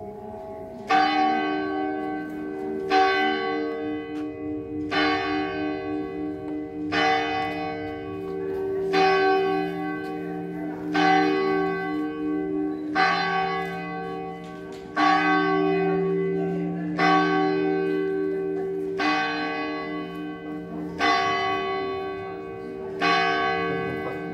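A church bell struck twelve times at an even pace, about one stroke every two seconds, each stroke ringing on and humming into the next.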